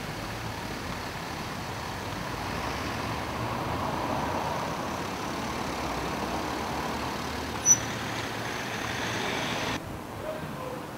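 Street traffic: a steady rush of passing cars that swells as one goes by around four seconds in, with a short sharp high squeak near eight seconds. The sound drops off abruptly near the end.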